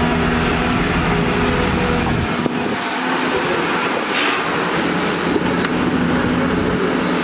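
Volvo EC480DL excavator's diesel engine running steadily under hydraulic load as the loaded bucket swings and empties into a dump truck; the deep low rumble eases about two seconds in. A brief rush of falling soil is heard about four seconds in.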